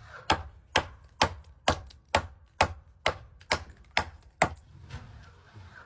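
Hammer strikes: about ten evenly spaced sharp blows, roughly two a second, stopping about four and a half seconds in.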